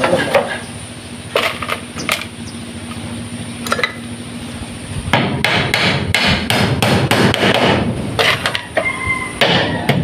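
Hammer nailing split-bamboo strips onto a concrete arch: a few scattered blows in the first half, then quick, steady hammering, several blows a second, from about halfway on.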